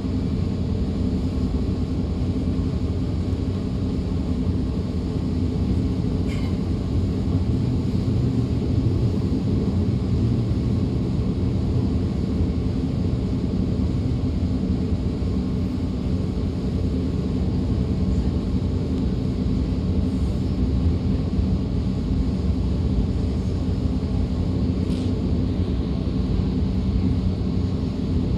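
DB Class 425 electric multiple unit heard from on board while running: a steady low running rumble with a held hum. Two brief faint higher squeaks, about six seconds in and near the end.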